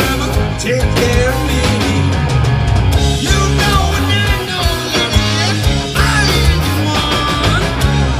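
Live rock band playing loudly: electric guitar, bass and drums with regular drum hits, and bending guitar notes over the top.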